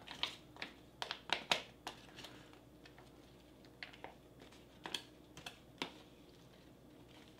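Plastic spoon scraping and tapping inside a foil-lined ration pouch as thick rehydrated muesli is scooped out. Quick clicks come close together in the first two seconds, then a few scattered taps.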